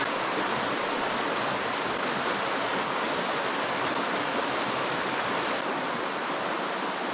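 Trout stream water rushing steadily, an even hiss with no breaks.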